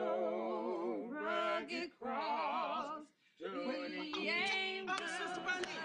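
A voice singing unaccompanied with a wide, wavering vibrato, in three phrases broken by short pauses about two and three seconds in.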